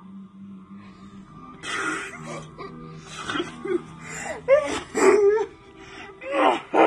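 A small child laughing hard while being tickled: breathy, wheezing gasps of laughter that break into louder bursts about four and a half seconds in and again near the end.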